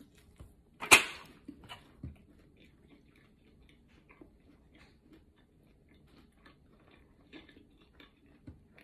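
A person biting into a slice of pizza and chewing: a sharp click about a second in is the loudest sound, followed by a few smaller clicks and then faint, irregular chewing sounds.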